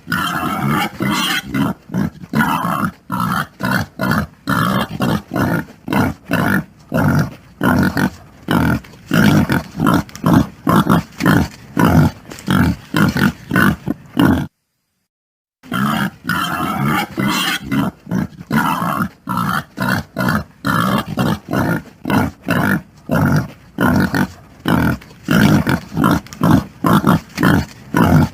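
Pigs grunting in a fast run of short, rough grunts, about three a second, broken by a silence of about a second midway.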